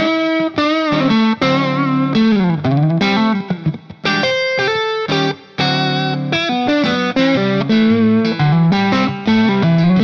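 Background music: a guitar-led instrumental track with effects, its notes sliding up and down over a steady pulse.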